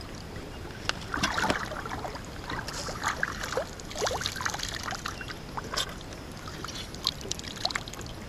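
Lake water splashing and dripping at the side of a boat as a released musky kicks off out of the angler's hands: a run of small, irregular splashes and drips, with water running off his hands.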